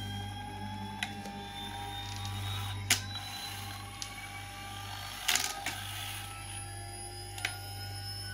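AGB-3K attitude indicator's gyro rotor, run on three-phase 36 V 400 Hz, whining as it spins up, the whine rising slowly in pitch over a low steady hum. A few sharp clicks and a short rattle, the loudest about three and five seconds in, as a hand handles the instrument.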